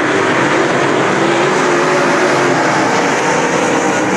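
Several dirt late model race cars' V8 engines running at racing speed together, loud and continuous, their pitches drifting up and down as the cars go around the dirt oval.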